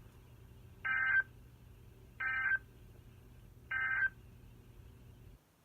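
Emergency Alert System end-of-message signal: three short, identical bursts of buzzy digital data tones, about a second and a half apart, marking the end of a severe thunderstorm warning broadcast. A low hum runs under them and cuts off near the end.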